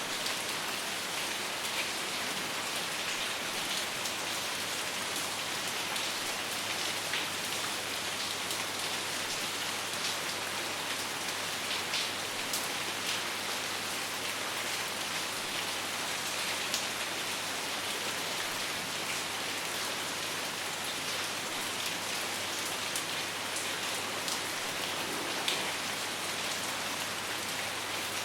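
Steady rain, with scattered louder drops ticking through it.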